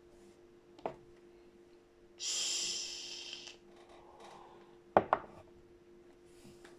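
A person blowing out a long breath of e-cigarette vapour: a breathy hiss starting about two seconds in and lasting over a second. A sharp knock comes about a second in and two more about five seconds in, over a faint steady hum.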